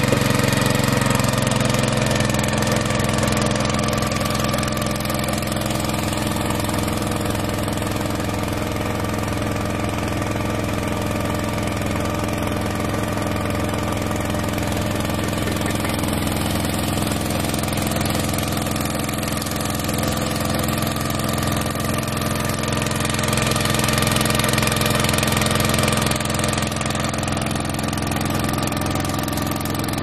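The 7.5 hp petrol engine of a portable high-pressure sprayer running steadily at a constant speed, driving the spray pump.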